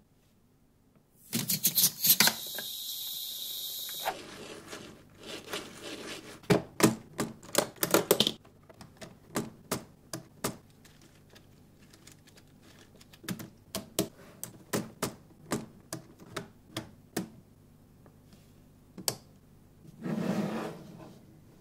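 Lego Technic plastic parts clicking and snapping as they are handled and fitted together, in irregular runs of sharp clicks that are dense for a few seconds and then sparser. A short steady hiss comes about two seconds in.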